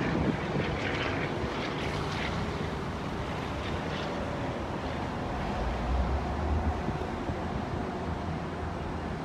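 Wind buffeting the microphone over a steady low rumble from a distant approaching train.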